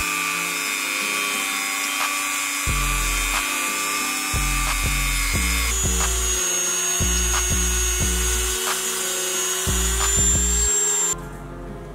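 Handheld rotary tool running steadily with a spinning wire brush scouring old paint off a metal model car body. Its high whine changes pitch about halfway through and stops about a second before the end, over background music with a beat.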